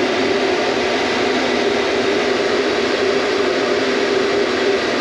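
CaraFan Sahara dust-reduction fan running: a steady, pretty loud rush of air over a constant low hum as it blows filtered air into the caravan to keep it under positive pressure against dust.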